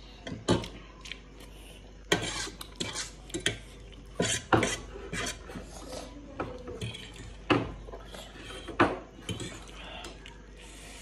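A metal fork clinking and scraping against a stainless steel bowl of noodles, a string of separate sharp clinks with short scrapes between them.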